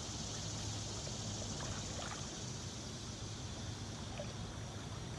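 Steady wash of flowing creek water.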